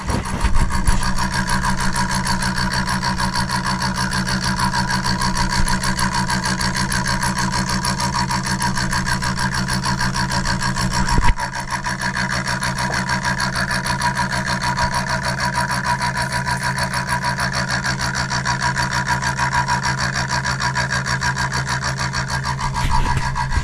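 A power tool's motor running steadily, with a continuous rubbing, cutting noise as it works the material; a short knock about halfway through.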